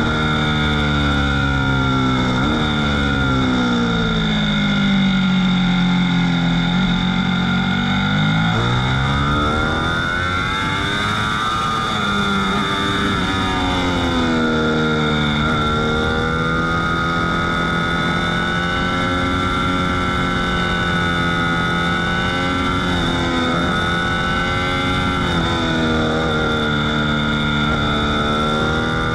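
Ducati V4 S motorcycle's V4 engine under hard riding, heard onboard: its pitch falls for several seconds as the bike slows, climbs again under acceleration, holds high through a long fast stretch, and dips briefly a few times before rising again near the end.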